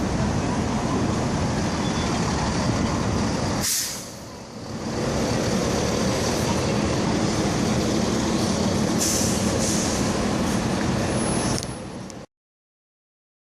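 Bus station din of bus engines running, with a sharp air-brake hiss about four seconds in and another about nine seconds in. The sound cuts off abruptly a little over a second before the end.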